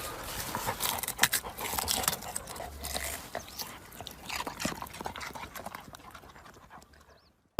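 Puppy sounds: a busy run of small clicks, scuffles and breathing noises, fading out near the end.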